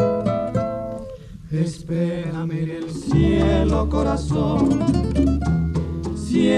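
Music: a Spanish-language ballad, sung over plucked acoustic guitar and bass. It dips briefly about a second in, and the bass comes in fuller from about three seconds in.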